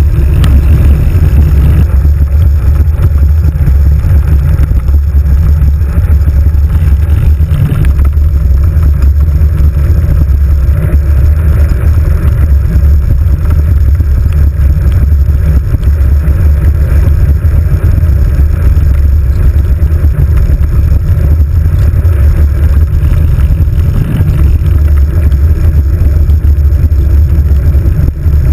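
Loud, steady low rumble of wind and road vibration on a handlebar-mounted GoPro as a road bike rolls up a wet road, with a faint hiss of tyres on the wet surface.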